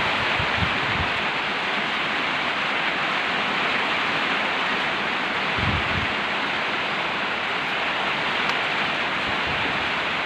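Heavy rain falling in a strong wind: a steady, dense hiss. Low gusts of wind buffet the microphone near the start and again about six seconds in.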